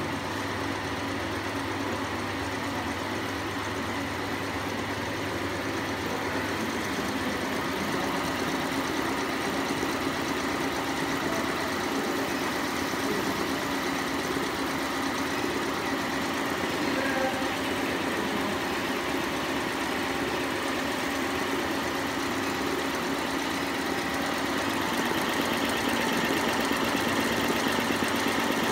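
FUWEI FW1502 two-head cap embroidery machine running, stitching with a fast, even rhythm over a steady mechanical hum, a little louder near the end.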